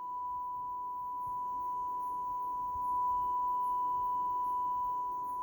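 Steady 1 kHz sine-wave test tone played through a Marantz 2500 stereo receiver on the test bench after its recap, getting a little louder about halfway through.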